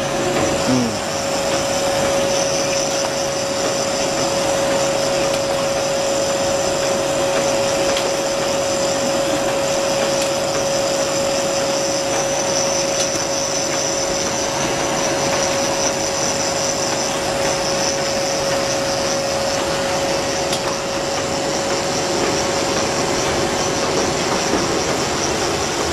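Semi-automatic carton folder-gluer running steadily: an even mechanical whir from its motor, belts and rollers, with one steady tone held throughout.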